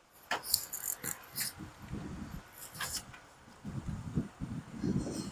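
Radiator fan motor and shroud being worked into a tight space behind the radiator: a string of sharp plastic and metal clicks and knocks, then low scraping and rubbing as the assembly is pushed against the radiator for the last couple of seconds.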